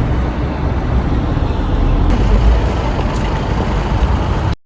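Road traffic going by, a steady noisy wash with a heavy low rumble, which cuts off abruptly near the end.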